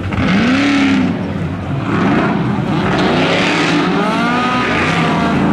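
Drag-racing car engines at full throttle down the strip, the pitch rising and falling several times.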